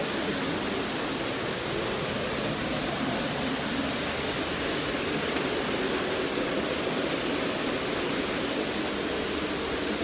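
Steady rush of water from the stream's cascade, an even hiss that does not change.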